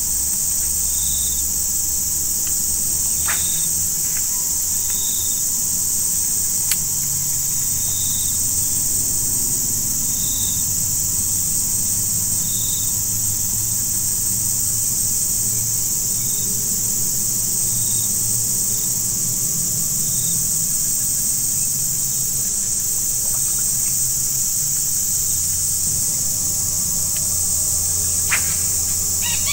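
Steady, high-pitched insect chorus, with a short chirp repeating every second or two through most of it and a bird's quick calls near the end.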